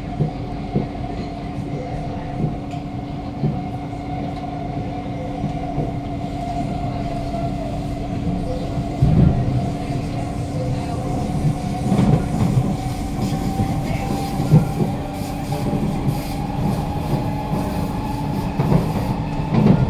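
Inside a C151A metro train car running at speed: the traction motors give a steady, echoey whine whose tone rises slowly, over the rumble of the wheels and occasional clacks from the rail. There is no flat-wheel thumping.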